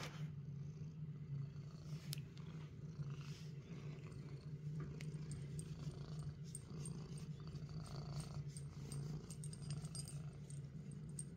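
Domestic cat purring steadily while it is stroked on the head, with a few faint clicks.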